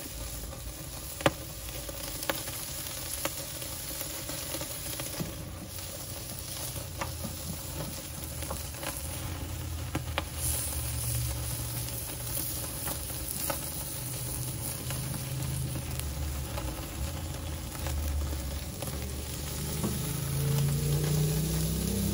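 Ribeye steaks sizzling as they sear on the grate of a very hot charcoal grill, with scattered crackles and pops and one sharp pop about a second in.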